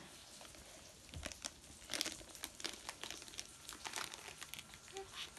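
Gift wrapping crinkling and tearing faintly as a present is unwrapped by hand, in a stream of small irregular crackles.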